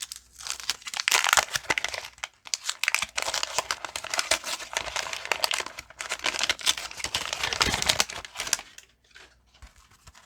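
Wax-paper wrapper of a 1989 Fleer baseball card pack crinkling and tearing as it is opened by hand, with two short pauses and stopping near the end.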